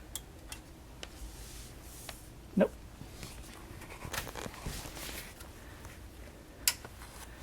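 A few sharp clicks, the loudest near the end, and faint handling noises as the power button of a newly built desktop PC is pressed and the machine fails to start. A man says "Nope" partway through.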